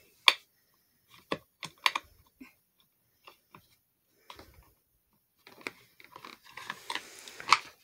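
Allen wrench turning a bolt in a gaming chair's armrest plate: irregular small metal clicks and ticks as the key shifts and catches in the bolt head. There is a sharp click just after the start and a denser run of clicks near the end.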